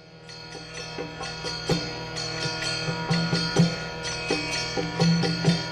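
Instrumental music: a steady drone under a run of sharply picked notes, about two or three a second.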